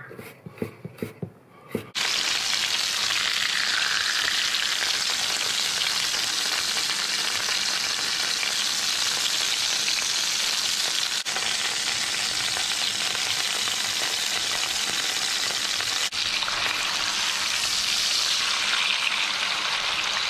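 A few sharp taps of a chef's knife chopping garlic on a wooden board, then from about two seconds in a steady, loud sizzle of skin-on chicken thigh fillets searing skin-side down in hot oil in a frying pan.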